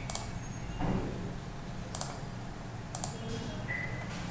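Computer mouse clicking: three sharp clicks, about a second in, about two seconds in and about three seconds in, each a quick double tick, over a faint steady hum.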